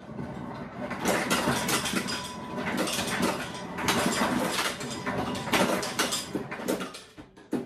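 Ice cubes clattering and rattling for several seconds in a dense run of quick clicks, fading out near the end.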